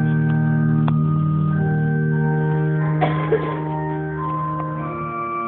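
Organ playing slow, sustained chords that change every second or two, with a couple of brief knocks about one and three seconds in.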